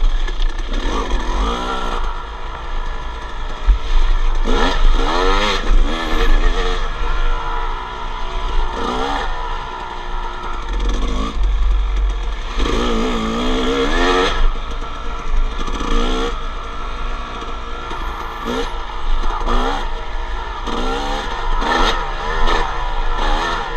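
Two-stroke 250 dirt bike engine being ridden along a trail, its pitch rising and falling again and again as the throttle is opened and closed.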